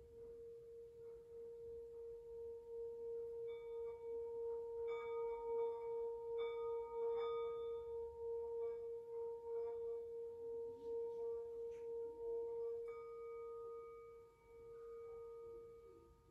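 Metal singing bowl for the crown chakra, sung by rubbing a mallet around its rim: a steady ringing hum with overtones that wavers in loudness, builds to its fullest in the middle with a few faint clinks of the mallet, then dips and rings on more softly near the end.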